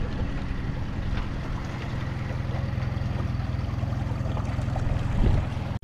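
Small 15-horsepower outboard motor running at a steady speed, pushing an inflatable dinghy along, heard from on board.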